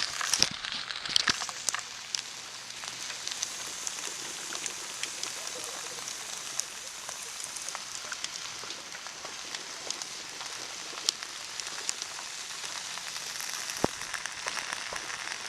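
Wood campfire burning, a steady hiss with irregular sharp crackles and pops.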